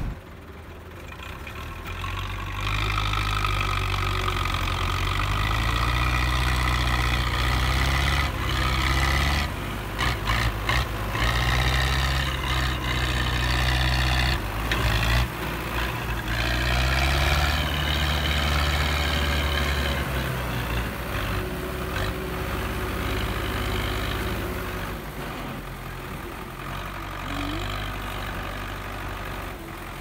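Belarus MTZ tractor diesel engines running hard under load, pulling through deep mud. The engine note rises a few seconds in, surges again about two-thirds through, then eases off toward the end.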